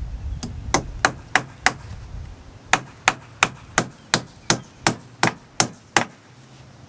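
Hammer driving 16-penny nails into a brace post. A run of five blows, a short pause, then ten more steady blows at about three a second.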